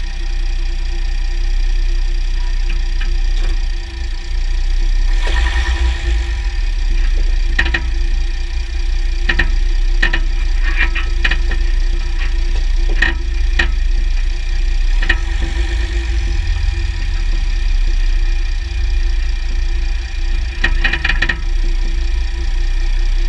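Underbody recording of a 3.0 CRD V6 diesel Jeep Grand Cherokee running, with a steady low drone. Scattered sharp clicks come over it, in a busy cluster partway through and a short burst near the end. These are the clicking noises heard from the underside while the owner chases a drivetrain clunk that comes on loading and unloading; their cause is not yet found.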